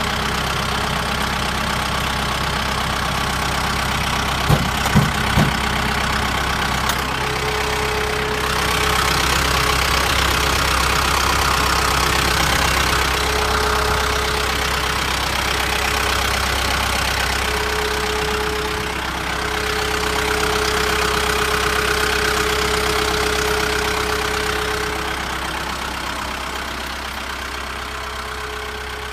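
Kubota M7060D tractor's diesel engine idling steadily, with a faint tone that comes and goes over it. A few short knocks about five seconds in.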